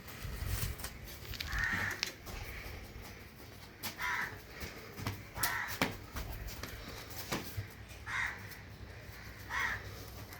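A bird giving about five short, harsh, caw-like calls, one to three seconds apart, with scattered clicks and knocks around them.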